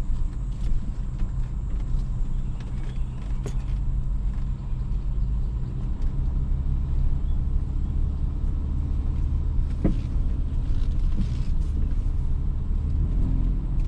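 BMW E53 X5 running with a steady low rumble, and two sharp knocks from the front end, one about three and a half seconds in and one near ten seconds. This is the popping noise still present with the sway bar end link removed, which the mechanic says sounds like broken metal and suspects may be a strut rod slapping inside a leaking strut.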